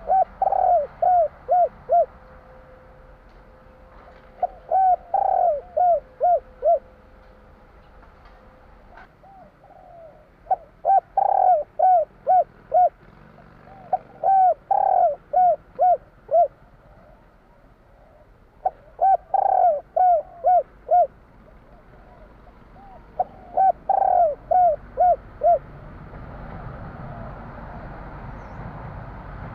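Spotted dove cooing: six runs of quick repeated coos, about four notes a second, each run lasting about two seconds, with pauses of a few seconds between them.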